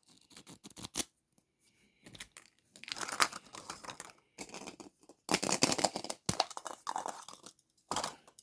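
Wrapping being torn and crinkled in irregular spurts, with a few sharp clicks, as a surprise egg is unwrapped by hand.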